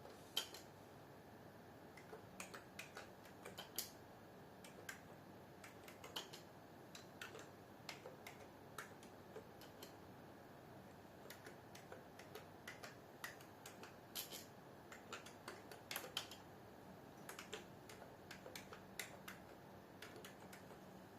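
Faint, irregular keystrokes on a computer keyboard: clicks in uneven runs of several a second with short pauses, as a reply is typed slowly. The loudest click comes just after the start.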